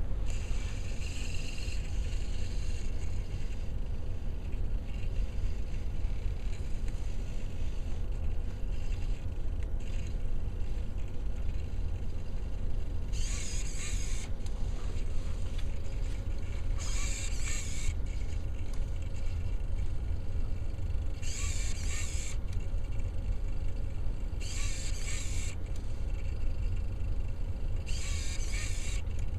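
The robot's hobby servos whirring in short bursts of about a second, several seconds apart, as its continuous-rotation wheel servos move it across the whiteboard in steps. A steady low rumble runs underneath.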